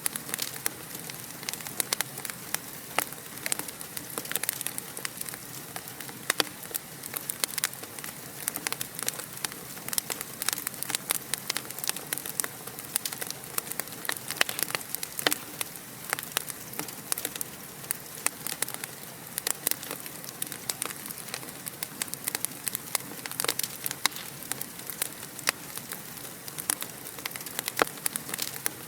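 Wood fire in a fireplace crackling steadily, with many irregular sharp pops and snaps over a soft hiss.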